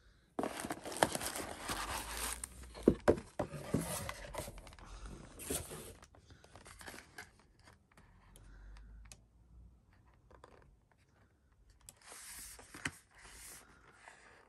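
Cardboard packaging being handled: an eyeshadow palette in its cardboard sleeve is slid out of a cardboard box, rustling and scraping against it, with a few sharp knocks about 3 s in. A second, shorter rustle near the end as the sleeve is turned over in the hands.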